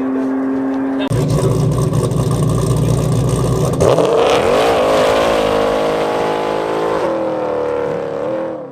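Car engines revving and accelerating hard, with sudden changes in the sound about a second in and about four seconds in. In the second half a single engine note climbs in pitch, then holds steady.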